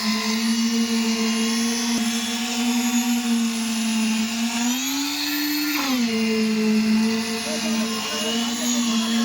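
Concrete pump's engine running steadily under load. About four and a half seconds in it speeds up, holds for about a second, then drops back to its steady pitch.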